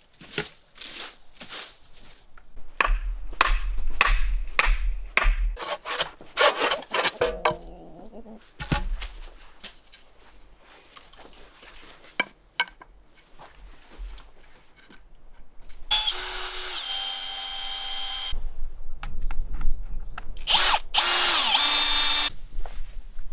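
A hand pruning saw cuts through woody bush stems in quick, uneven strokes. Later a small motorised tool whirs steadily twice, about two seconds each time, its pitch stepping down as it runs.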